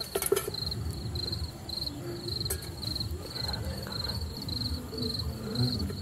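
A cricket chirping steadily, a high-pitched trill repeating about twice a second, over low rustling and handling noise.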